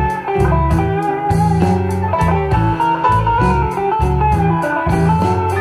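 Recorded guitar music played back through a single-ended triode (845/211) tube amplifier and loudspeakers: plucked guitar notes over a moving bass line.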